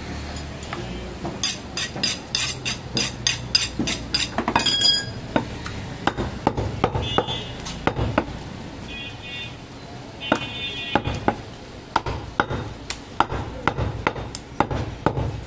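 A large butcher's knife chopping goat meat on a wooden log chopping block, with sharp separate knocks every second or so. About two seconds in, there is a quick run of sharp clicking strokes, about four a second, lasting a couple of seconds.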